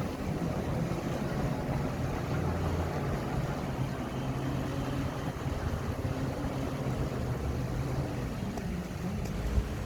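Bulldozer's diesel engine running steadily, with a single sharp knock near the end.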